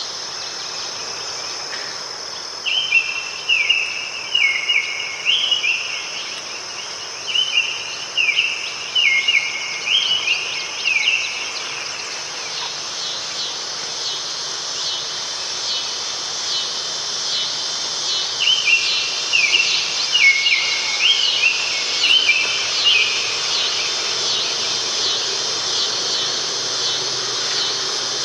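Steady chorus of insects buzzing and trilling high-pitched, with a songbird singing three bouts of quick, repeated down-slurred whistled notes.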